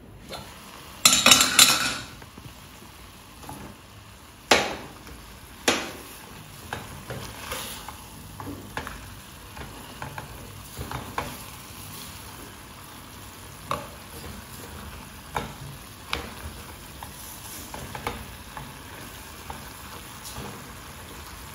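Chicken sizzling in a stainless steel saucepan while a silicone spatula stirs it, knocking and scraping against the pot at irregular intervals. About a second in, a loud metallic clatter as the pot lid is lifted off.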